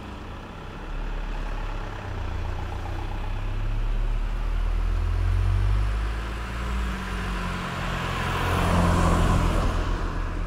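A diesel route bus approaches and passes close by, its engine a low rumble that swells to a peak about halfway through. Near the end a car passes with a rush of tyre noise.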